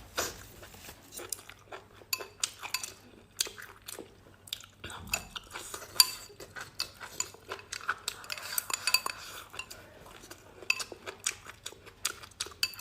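Eating utensils clinking and scraping against a bowl during a meal: many short, sharp taps, with the loudest one about six seconds in.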